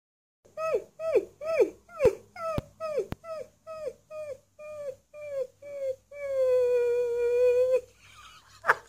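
Husky-type puppy giving a run of short yelping whines, each dropping in pitch, about two a second, then one long, steady howl near the end.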